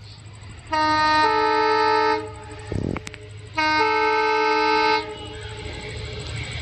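Locomotive horn sounding two long blasts of about a second and a half each, its chord shifting to a different note partway through each blast. The rumble of the approaching train grows after the second blast.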